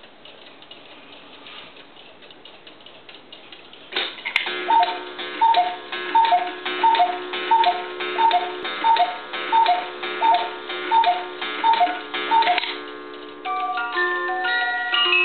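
One-day cuckoo clock ticking. About four seconds in, its strike releases with a click, and the cuckoo calls its two-note high-low call over and over, about two calls a second, over a held background tone. Near the end its music box starts a tune.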